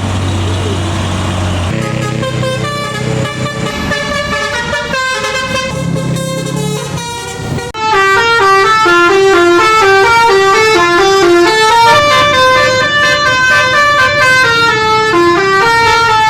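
Bus telolet Basuri musical horn playing a fast stepping melody, note after note, becoming much louder about eight seconds in. A low engine hum is heard at the start.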